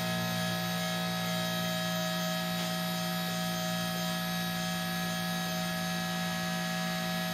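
Electric-over-hydraulic boat lift's pump motor running with a steady hum as the lift platform lowers the boat.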